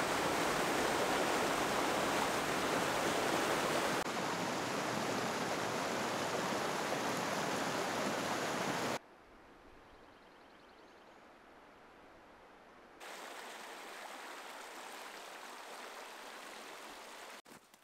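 Snowmelt mountain creek running over rocks, a steady rush of water. It drops sharply in loudness about nine seconds in, then comes back up about four seconds later, somewhat quieter than at first.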